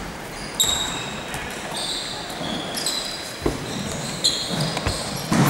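Basketball bouncing on an indoor court with a few dull thuds, mixed with repeated short, high squeaks of sneakers on the floor.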